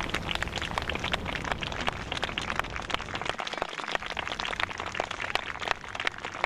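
Dense, irregular crackling clicks over a low rumble.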